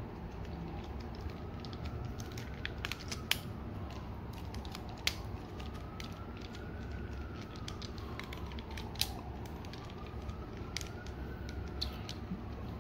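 Scattered plastic clicks and creaks from a Transformers Masterpiece MP-26 Road Rage figure's leg parts as they are worked by hand, the legs sticking and not yet separating. A faint tone slowly rises and falls in the background.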